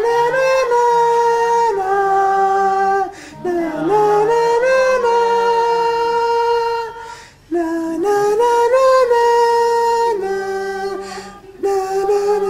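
A voice singing a wordless "la la" tune without accompaniment, in three long phrases of held notes with short breaks between them, and a fainter lower part underneath.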